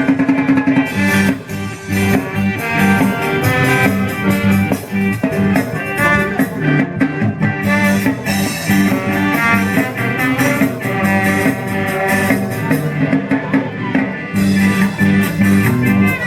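Ska band playing a song: guitar over bass and drum kit with a steady beat, no break in the music.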